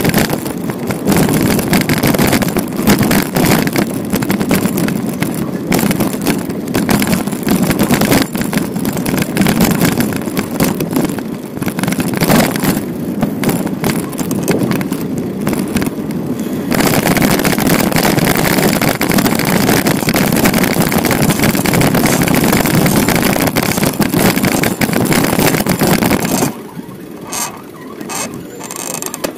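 Steady rushing wind and tyre noise from a moving bicycle on a city street. The noise drops off abruptly near the end.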